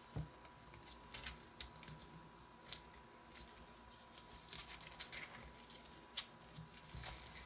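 Plastic puzzle pieces being twisted and handled: scattered light clicks and rubbing, with a sharper click a few times. A faint steady high hum runs underneath.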